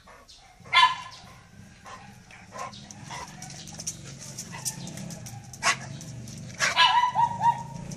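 A dog barking: one loud bark about a second in, another a little past the middle, and a quick run of barks near the end, over a steady low hum.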